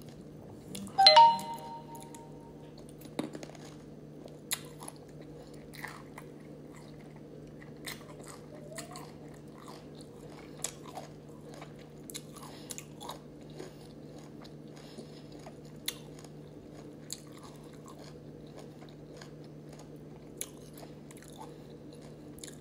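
Close-up mouth sounds of a person eating sour lemon: scattered wet smacks, clicks and chewing over a steady low hum. One short, loud vocal sound comes about a second in.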